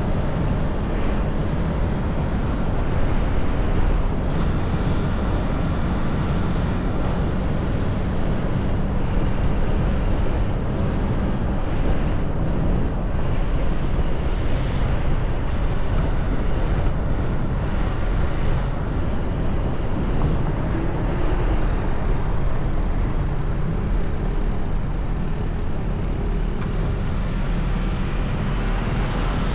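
Steady low rumble of a car driving on city roads: engine and tyre noise.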